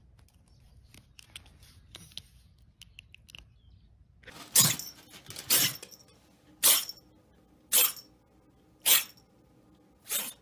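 A tabby kitten sneezing over and over, six short sharp sneezes about a second apart, after a few faint clicks and rustles.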